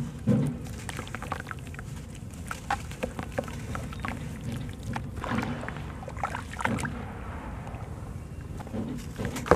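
Wet sand-and-cement lumps crumbled by hand into a basin of water: gritty crackling, with grit and pieces pattering and plopping into the water. The water sloshes in irregular surges, the louder ones just after the start and near the end.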